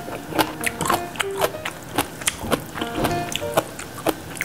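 Light background music: short plucked notes at changing pitches over a quick clicking beat, about three or four clicks a second.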